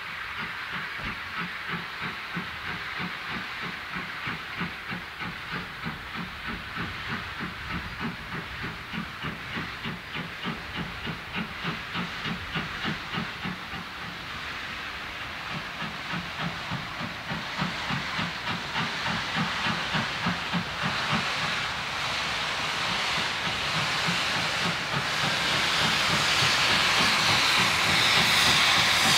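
Caledonian Railway 439 Class 0-4-4T tank locomotive No. 419 approaching under steam with a passenger train, its exhaust beating in a regular rhythm. It grows steadily louder as it nears, with a loud hiss of steam building near the end.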